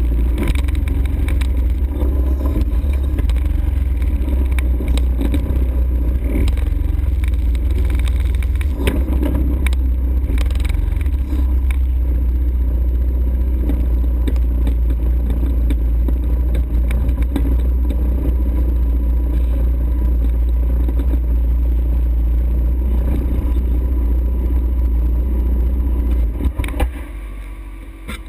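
ATV engine running under way, with a heavy low rumble and scattered knocks and clatter. Near the end the sound falls away sharply as the machine stops or shuts off.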